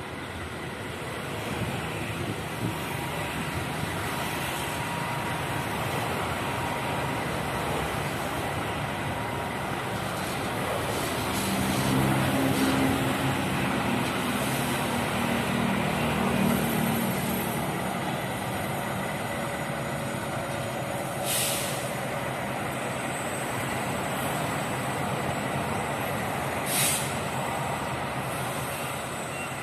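Diesel-electric locomotive running as it shunts a train of ballast hopper wagons, its engine note swelling between about 12 and 17 seconds in. Two short hisses follow, one about 21 seconds in and one near the end.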